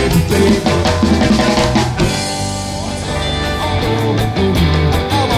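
Live ska band playing: drum kit, bass and guitar. The drum hits thin out briefly about two seconds in, then come back.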